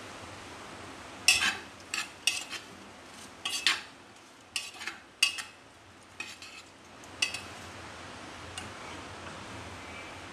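Spoon stirring vegetables in a pressure cooker pot, clinking and scraping against the pot's side in a dozen or so sharp clatters, over a steady hiss; the stirring stops about seven seconds in.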